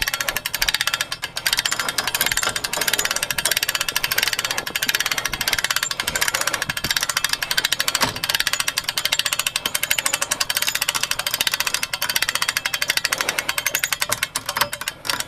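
Hand-cranked winch on a hay unroller being wound steadily, its ratchet pawl clicking rapidly as the cable draws a round hay bale up into the frame. The clicking stops near the end.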